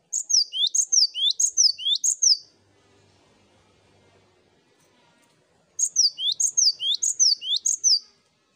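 Cinereous tit (gelatik batu) singing: two loud phrases of about four repeated high, two-part whistled notes, each note a falling then a rising sweep, with a pause of about three seconds between the phrases.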